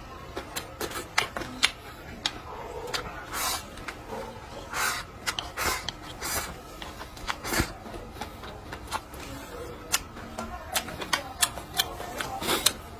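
Eating at the table: chopsticks and utensils clicking irregularly against bowls and plates, with a few longer, noisier eating sounds in between.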